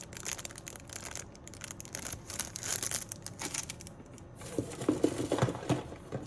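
Plastic product packaging crinkling and rustling as it is handled and opened, with a few light knocks about two-thirds of the way in.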